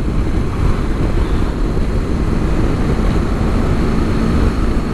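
Steady wind rush and turbulence on the microphone of a Honda ST1100 Pan-European motorcycle at riding speed, with the bike's V4 engine running faintly underneath.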